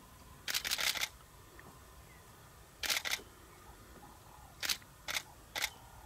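Camera shutters clicking: a quick run of several shots about half a second in, a pair near three seconds, then three single shots about half a second apart near the end.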